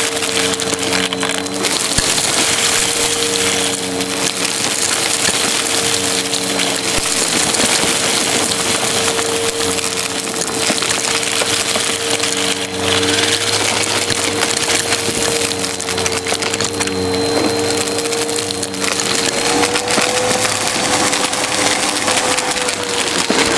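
Shark handheld vacuum running with a steady motor whine while sucking debris out of a shag rug: a dense, continuous crackling and rattling as the particles are pulled through the nozzle. The whine rises slightly in pitch near the end.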